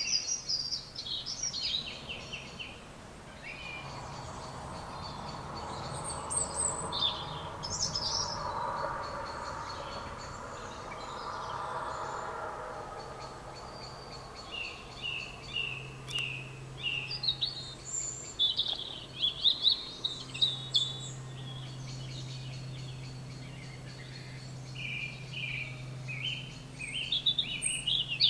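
Songbirds singing in an evening chorus, short chirping phrases repeated at intervals. A broad background rumble swells and fades in the middle, and a steady low hum runs under the later singing.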